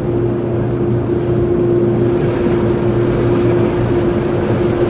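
Steady droning background noise with a constant humming tone, the continuous bed that lies under the spoken words.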